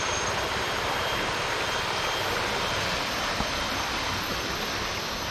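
Shallow river running over rocks and riffles: a steady rush of flowing water.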